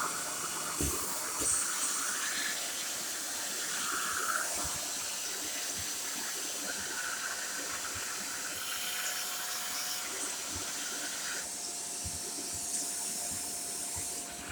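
Shark corded Lift-Away vacuum cleaner running, a steady airy hiss with a faint steady whine and a few soft knocks.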